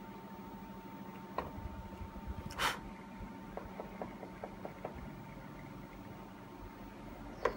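Faint scrubbing of an eraser on drawing paper: one short scrub about two and a half seconds in, then a quick run of light ticks, over a steady low hum.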